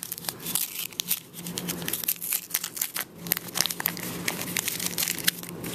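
Waxed paper of an old 1982 Fleer football card wax pack being torn open and crinkled by hand: a dense, irregular run of sharp crackles.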